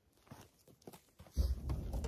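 Faint clicks and rustling of a plastic food package being handled, then about two-thirds in a loud low thump and rumble as a person sits down close to the microphone.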